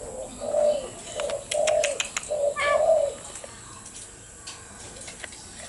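A bird cooing: about six short, soft low notes in quick succession, with a few sharp clicks among them, then it stops about three seconds in.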